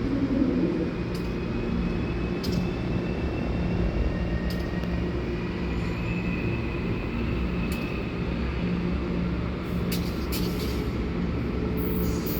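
Commuter train running steadily with a low rumble, a faint high squeal and a few sharp clicks.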